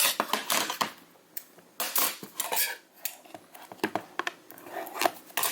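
A blade cutting open the plastic seal of a cardboard trading-card box: irregular scrapes and sharp clicks as the blade drags and taps across the box.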